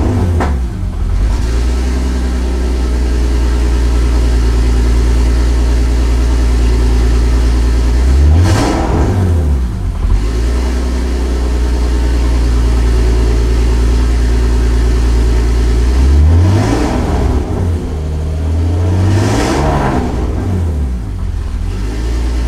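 Turbocharged BMW E46 engine idling, revved briefly three times while the car stands still, each time rising in pitch and falling back to idle.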